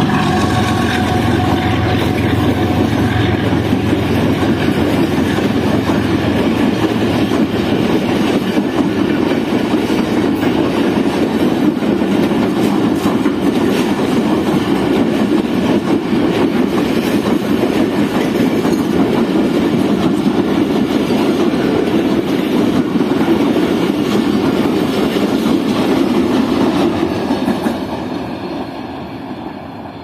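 An express passenger train's coaches rolling past at moderate speed, wheels clattering on the rails in a dense, steady rumble. It fades away near the end as the last coaches pass.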